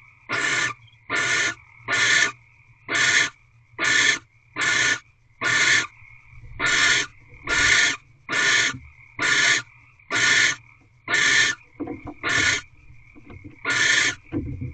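Barn owl giving a long series of harsh hissing screeches, about one a second.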